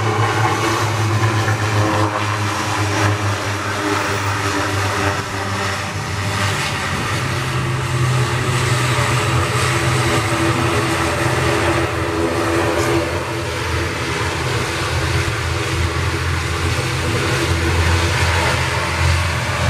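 ATR 72-600 turboprop's twin Pratt & Whitney PW127 engines and propellers running at taxi power: a steady drone with a low propeller hum that steps up a little in pitch about seven seconds in.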